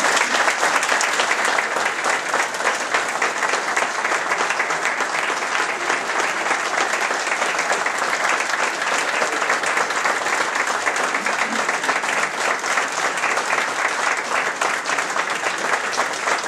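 A large roomful of people applauding: many hands clapping in a dense, steady wash that keeps going without letting up, as applause at the close of a speech.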